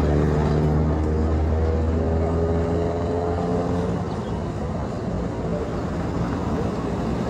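A vehicle engine running steadily with a low hum that fades out about four seconds in, leaving general road and traffic noise.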